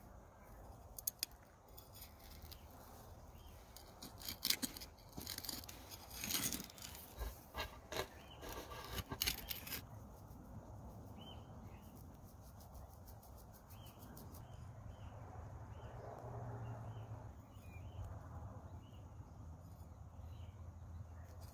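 Metal hand trowel scraping and crunching into gravelly soil in a quick run of short scrapes and clicks. After that only a faint low hum is left, with short faint high chirps.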